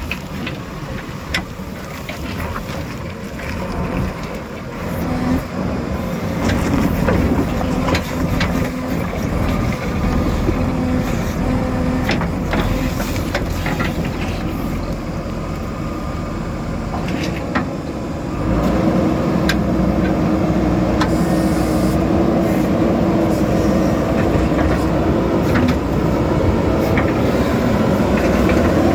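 JCB backhoe loader's diesel engine running under load while the bucket knocks and scrapes on rock, with frequent sharp clatters. About two-thirds of the way through the engine revs up and stays louder.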